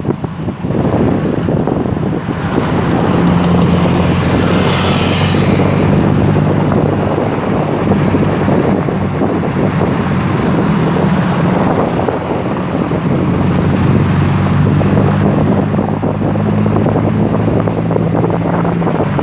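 Road traffic noise with wind buffeting the microphone: a vehicle engine's low, steady hum, and a vehicle passing about four to six seconds in.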